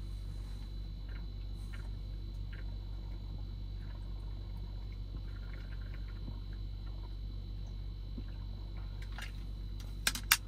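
A person drinking from a stainless-steel vacuum flask, with faint swallows over a steady low hum inside a car cabin. Near the end come two sharp clicks as the flask is lowered and its lid handled.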